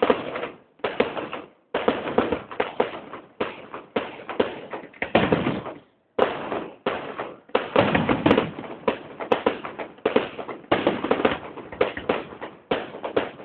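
Fireworks going off in quick succession: a dense run of bangs and crackles, each fading quickly, with a brief pause about six seconds in.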